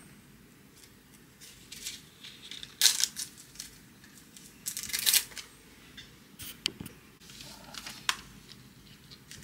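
A paper page being torn off a tear-off desk calendar pad: a few short rips and rustles, the loudest about three and five seconds in, then a couple of light clicks as the torn sheet is handled.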